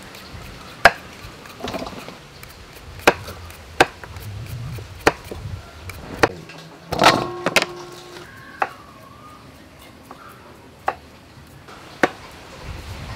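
Knife chopping vegetables on a wooden chopping board: sharp, uneven knocks about once a second, with a quick flurry of strokes near the middle.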